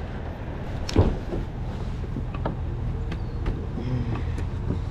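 A vehicle engine running steadily under metallic clanks and clicks, with one loud knock about a second in.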